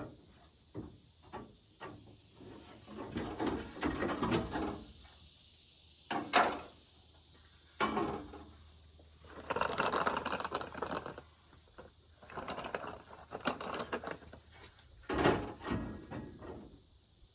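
Sheet metal and small clamps being handled as a replacement truck bed-side panel is fitted: irregular clanks, rattles and scrapes, with a few sharp knocks and several scraping stretches of about a second each.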